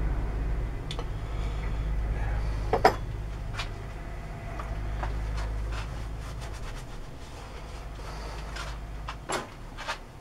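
Metalworking lathe running with a low steady hum that fades and drops away about nine seconds in, over scattered sharp metal clicks and knocks, the loudest a little before three seconds in.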